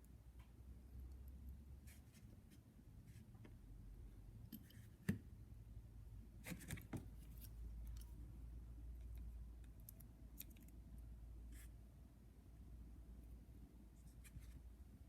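Quiet handling sounds: faint clicks and light scraping, with one sharper click about five seconds in and a few more around seven seconds, over a low steady hum.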